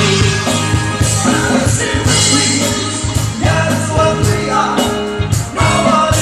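Live band playing a pop-rock cover with a singer, over a steady drum beat.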